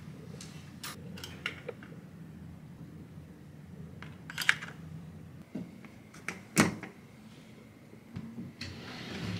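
Light plastic and metal clicks and knocks from a hotel room entrance: a plastic keycard slid into the wall power slot, with a few small clicks early on and a pair near the middle. A single sharper knock comes about two-thirds of the way through and is the loudest sound.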